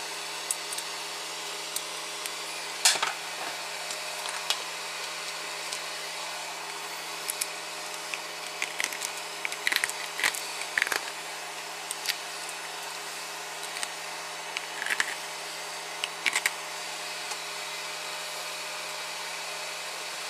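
Steady whir of a 3D printer's cooling fans with a faint hum, under scattered light clicks and taps of a hard plastic printed part being handled and flexed.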